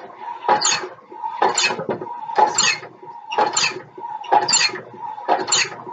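Hand-cranked crockmeter in use: the crank turns steadily, driving the cloth-covered acrylic finger back and forth over the fabric specimen in a dry crocking rub test. Each turn gives a pair of short rubbing strokes, about one pair a second, with a steady tone running under them.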